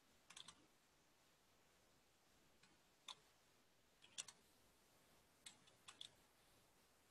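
Faint computer keyboard keystrokes: a few short clicks in small clusters, with near silence between.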